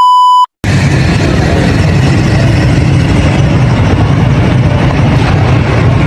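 A glitch-transition sound effect: a loud steady beep for about half a second. Then a vehicle engine runs steadily, heavy in the low range.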